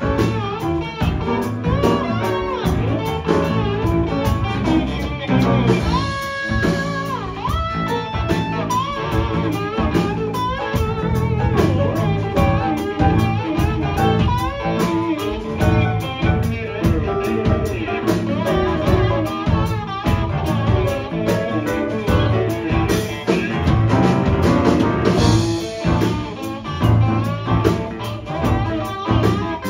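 A live rock band playing: electric guitars, bass guitar, keyboard and drum kit, with a steady beat and bending guitar lines.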